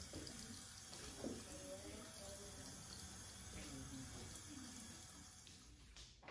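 Faint, steady hiss of running tap water, with a faint voice in the background partway through.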